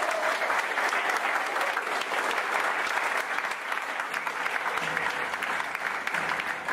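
Theatre audience and cast applauding: steady, dense clapping from many hands.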